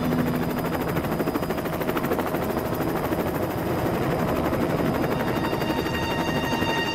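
Helicopter rotor chopping steadily in a rapid, even pulse.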